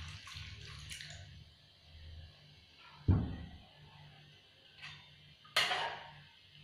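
Coconut milk pouring into a wok of curry sauce, trailing off about a second in. A dull thump follows about three seconds in. Near the end comes a sharp knock of a metal spatula against the wok as stirring begins.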